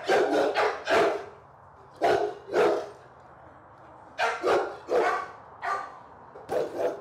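Bull mastiff cross barking repeatedly behind kennel bars, about a dozen deep barks in four short runs. This is the reactive barking of a dog distrustful of a stranger at its cage.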